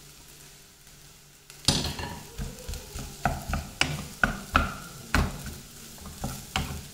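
A wooden spatula stirs and presses boiled mashed potato into a sautéed onion masala in a non-stick pan. It knocks and scrapes against the pan about two or three times a second, starting about a second and a half in, over a faint sizzle of frying oil.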